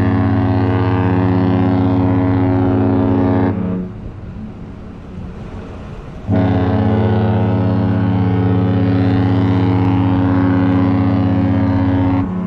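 Cruise ship horn sounding two long, steady, deep blasts. The first is already sounding at the start and stops about three and a half seconds in; the second starts about three seconds later and holds for about six seconds.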